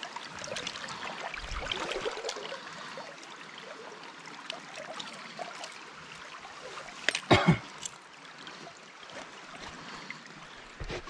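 Shallow stream water running and trickling around a landing net while a trout is unhooked in it, with splashing and handling noise that is busiest in the first few seconds. A brief sharp knock about seven seconds in is the loudest sound.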